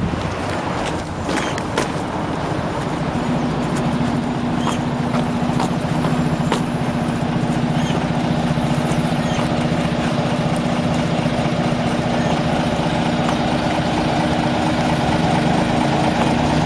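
Diesel engine of a Scania coach idling steadily, growing a little louder toward the end. A few sharp knocks come in the first couple of seconds.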